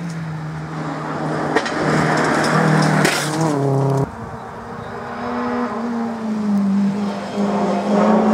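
Rally car engine at high revs sweeping past, its note dropping in pitch as it goes by about three seconds in. Just after, the sound changes abruptly and the next rally car's engine is heard approaching, growing louder toward the end.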